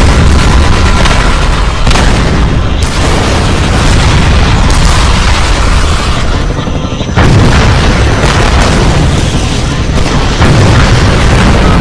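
Continuous loud explosions and blasts from a battle soundtrack, with fresh booms hitting about two seconds in, about seven seconds in and again about ten and a half seconds in.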